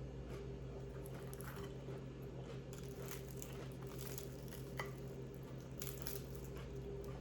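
Close-up chewing and crunching of food, with soft wet squishes, in scattered short crisp bites over a steady low hum.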